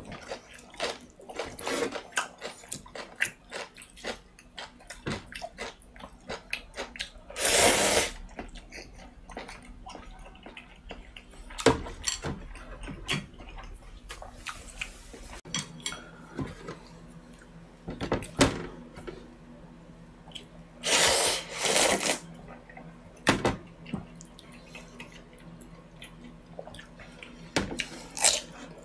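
Close-up eating sounds of noodles in broth: chopsticks clicking on the bowl and plastic tray, chewing, and two long loud slurps, one about 8 seconds in and one about 21 seconds in.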